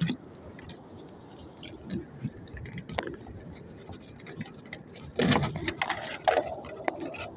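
Anchor rope being hauled in by hand and coiled onto the floor of a wooden outrigger boat: scattered knocks and clicks of rope and hands against the wooden hull, with a sharp click about three seconds in and a louder clatter of knocks about five seconds in.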